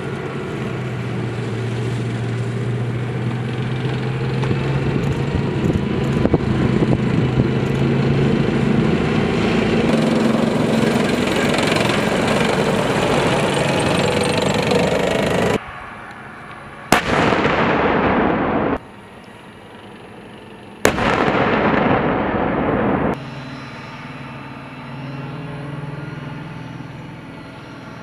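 M1 Abrams tank driving by, its engine and tracks running steadily and growing louder. Then sharp gun blasts about four seconds apart, each ringing out afterwards, with another at the very end.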